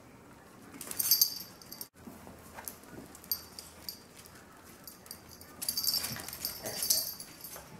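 Pet dog making short, breathy, hissing sounds close by, in three bursts: about a second in, around three and a half seconds in, and for about a second and a half from five and a half seconds.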